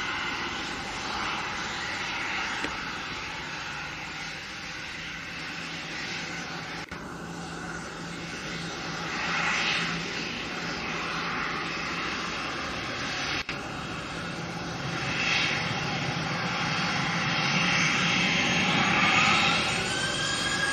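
Jet engines of aircraft taxiing at low thrust: a steady jet roar and whine that swells in a few places and drops out briefly twice. Near the end a turbine whine rises in pitch.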